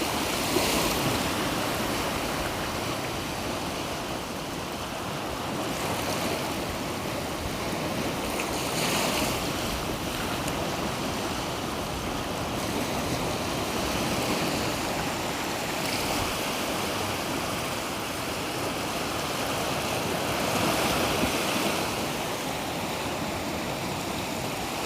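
Black Sea surf washing onto the shore, a continuous rush of breaking waves that swells every few seconds.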